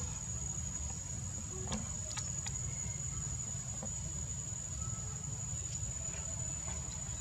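Outdoor background: a constant high-pitched insect drone over a steady low rumble, with a few faint clicks.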